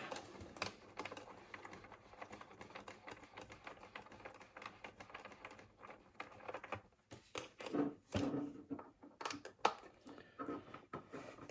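Light, irregular clicks and taps of small hard objects being handled, in quick uneven runs like typing.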